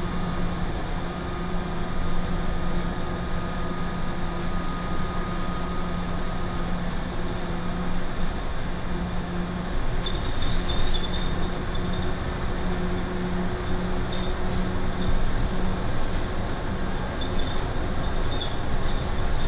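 Cabin of a Scania battery-electric bus under way: steady road and running noise with a low, steady hum. Light rattles and clicks come in from about halfway through.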